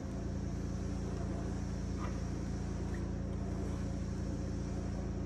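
Steady low machine hum that holds unchanged throughout.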